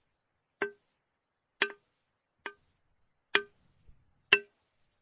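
Claw hammer striking metal: five separate clanking blows at uneven intervals of about a second, each with a short metallic ring that dies away quickly.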